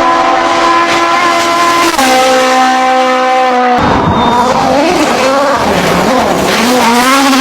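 Race car engine sound effect: a high, steady engine whine that drops in pitch about two seconds in. From about halfway it wavers up and down in pitch for a few seconds, then settles into a steady whine again near the end.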